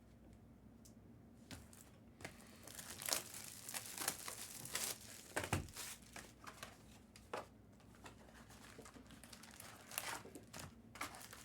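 Foil trading-card pack wrappers crinkling and tearing as packs are ripped open, with scattered sharp clicks and taps; busiest about three to five seconds in.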